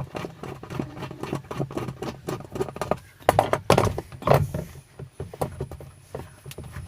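Irregular clicks, knocks and scrapes of a screwdriver working loose the central star (Phillips) screw of a top-loading washing machine's pulsator, with a few louder knocks in the middle.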